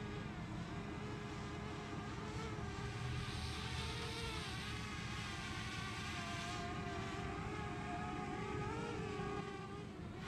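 Parrot Bebop quadcopter's propellers and brushless motors whining steadily in flight, the pitch wavering up and down as the motors change speed. The drone is climbing and dropping on its own with its altitude hold malfunctioning.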